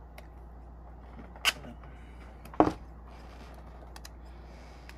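A roll of adhesive tape is handled and a small piece torn off: two short, sharp sounds about a second apart, the second louder.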